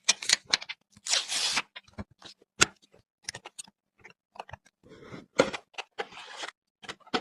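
Hands unboxing computer parts: a quick run of clicks and taps, with short bursts of tearing and rustling packaging, the longest about a second in.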